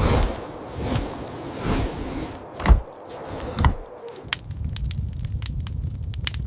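A few whooshing swishes, then two heavy thuds about three and four seconds in, followed by scattered sharp clicks over a low rumble.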